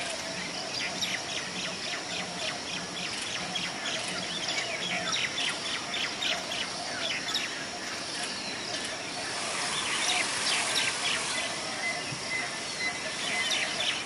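Small birds chirping: many short, high chirps in quick succession over steady outdoor background noise, busiest about ten seconds in and again near the end.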